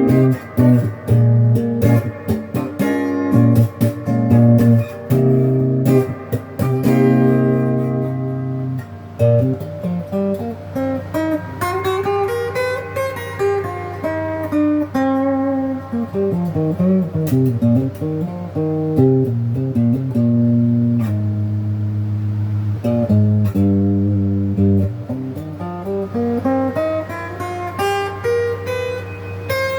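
Epiphone Les Paul Jr. electric guitar, its single bridge pickup played through a Crate GX15R amp on the clean setting with the tone knob rolled back a little. Choppy strummed chords for about the first nine seconds, then single-note runs that climb and fall, a few held chords, and a rising run near the end.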